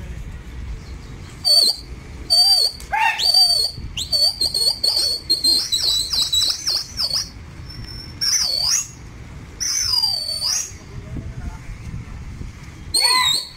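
A pigeon flyer's shrill whistles to his circling flock, one after another with short gaps. Some are held and wavering, some warble quickly and some swoop downward.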